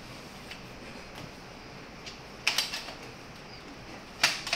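Sharp metal clicks and clinks from a chrome-plated steel spring cot stand as its parts are handled and fitted together: a small cluster about two and a half seconds in, and the loudest click just after four seconds.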